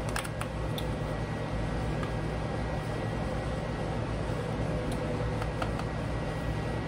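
Steady low mechanical hum, like a fan or kitchen appliance running, with a few faint light clicks of a metal measuring spoon against a cardboard seasoning box.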